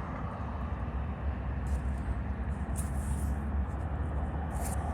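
Steady low engine rumble with a faint haze of noise above it, and a few faint short ticks.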